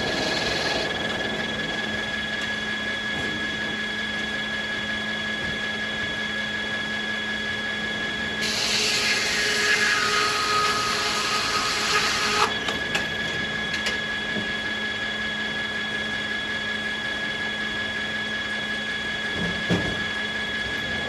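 Sawmill machinery running with a steady hum of spinning blades and motors. About eight seconds in, a saw bites into a beech cant and cuts for about four seconds, louder and hissier, then drops back to the idle hum. A single knock comes near the end.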